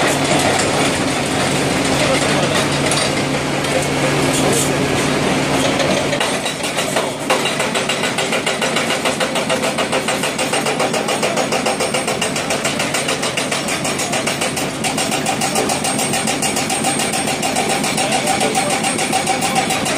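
Hydraulic breaker hammers on excavators pounding rock, the nearest an MTB 285 on a CAT 330D, over the excavators' diesel engines. From about seven seconds in, the blows settle into a rapid, even hammering.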